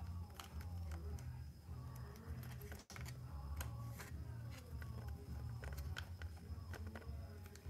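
Scattered light clicks and rubbing as the foam tail section of a model glider is worked onto its fuselage by hand, over a steady low hum.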